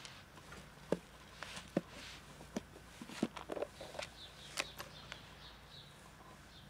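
A clip-lock plastic food container being handled: a series of sharp plastic clicks and knocks as its latches are undone, the lid comes off and the tub of dry cat food is set on the ground.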